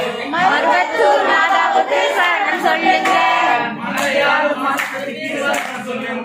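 A group of voices singing a Tamil Amman devotional bhajan together, the voices overlapping like a crowd chorus.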